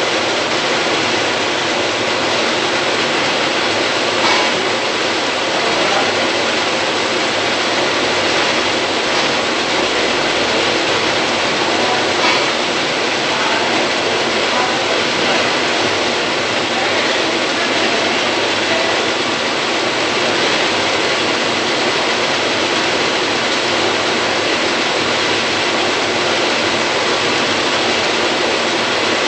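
Metal lathe running and turning a metal rotor shaft, the cutting tool working along it: a loud, steady mechanical din with a few faint clicks.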